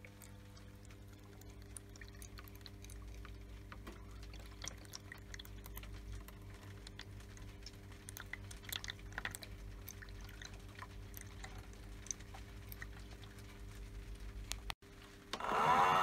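Water poured into a toy washing machine's detergent drawer, trickling and dripping into the drum with small splashes and ticks over a faint steady hum. Louder music comes in near the end.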